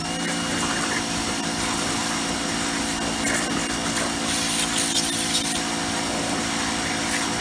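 Titan pressure washer running steadily, its motor and pump humming under the hiss of the water jet spraying onto a plastic sun lounger.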